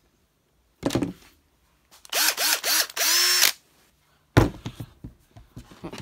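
Milwaukee cordless drill triggered in three quick blips and then run for about half a second, the motor whine rising and falling with each pull of the trigger. A thump about a second in and a loud knock near the end as the drill is set down on the bench.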